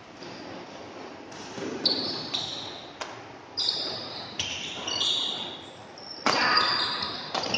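Badminton rally: quick sharp racket hits on the shuttlecock, about one every half second to second, mixed with short high squeaks of shoes on the court, ringing in a large hall. The hardest hit comes about six seconds in.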